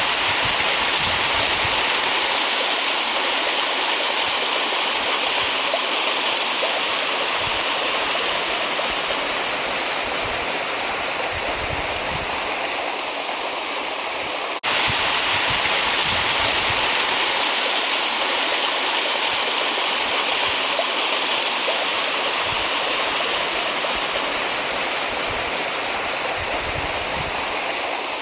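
Small mountain waterfall rushing and splashing steadily, with a brief break in the sound about halfway through.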